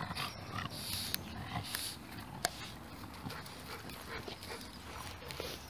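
Dogs playing rough: faint scuffling with scattered sharp clicks.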